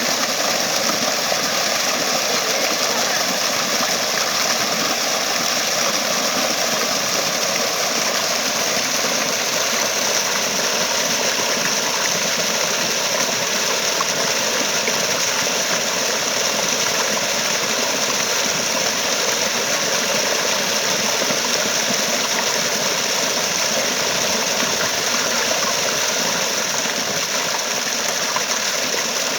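Flowing water rushing steadily with an even, unbroken hiss.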